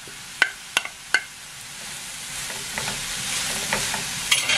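A slotted spatula taps three times against a plate as chopped capsicum is knocked into the pan. Then a chicken and vegetable filling sizzles in the frying pan as it is stirred, the sizzle growing steadily louder.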